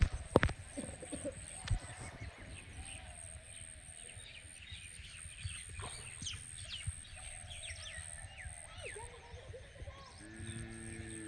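Small birds chirping and twittering over a steady thin high-pitched whine, with a sharp knock just after the start. Near the end a cow starts mooing, one long low call.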